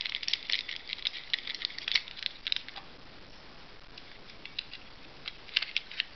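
Light metallic clicking and ticking as the ignition stator plate's small fixing screws and spacers are fiddled into place and an Allen key is brought to them, the screws being run in loosely. A quick run of clicks at first, then only a few scattered clicks near the end.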